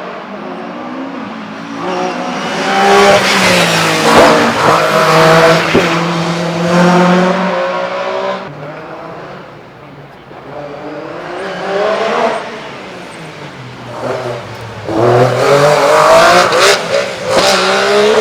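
MG Metro 6R4 rally car's V6 engine at full throttle, its pitch climbing and then dropping at each gear change. It is loudest twice: from about two to eight seconds in, and again from about fifteen seconds in to the end, with a quieter spell between.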